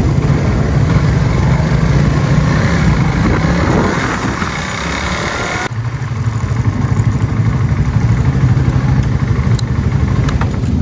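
Suzuki Raider 150 Fi's single-cylinder engine running at low revs as the bike rides slowly. About halfway the sound changes abruptly, and the engine runs on steadily at near idle as the bike rolls to a stop.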